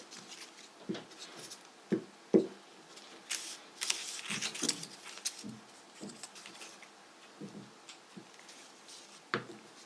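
Small handling sounds of paper crafting: scattered light knocks and clicks on a table, with a short spell of rubbing as a glue stick is worked onto folded paper strips.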